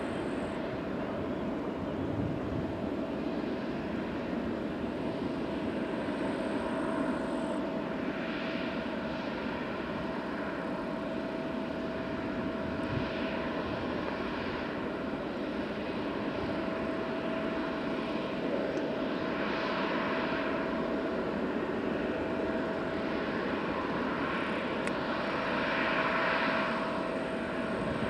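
Airbus A319's CFM56-5A turbofan engines running at taxi power: a steady rush of jet noise with a constant whine, swelling a little several times and most near the end.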